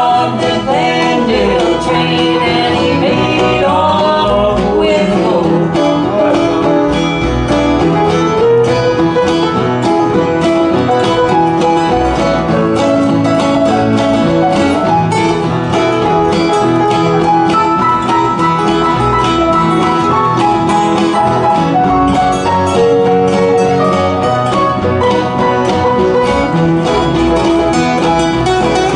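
Small acoustic band playing a country-folk song live: strummed acoustic guitars and an electric guitar, with a harmonica played through it. A woman sings over the first few seconds.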